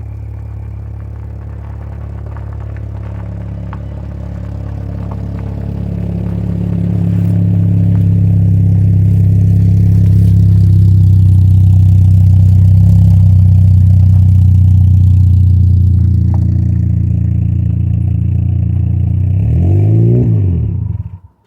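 Car engine running loud and steady, building up over the first several seconds. Near the end its pitch sweeps up and down, then the sound cuts off abruptly.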